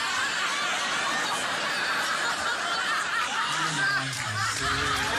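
A roomful of people laughing and chuckling together, with one deeper voice standing out near the end.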